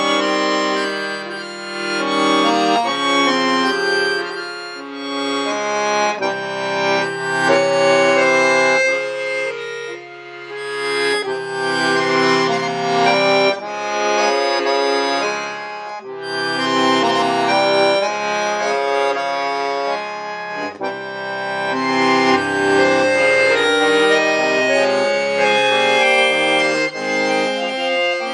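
Solo accordion playing: sustained chords over a moving bass line, swelling and easing, with brief dips in loudness about ten seconds in and about sixteen seconds in.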